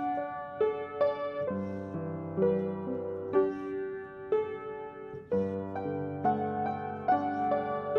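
Piano playing a slow, sustained instrumental passage, a new chord or melody note struck roughly every second.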